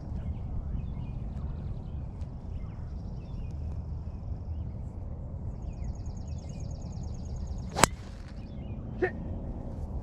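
A golf club striking the ball, one sharp crack about eight seconds in, over a steady low rumble and a pulsing high buzz.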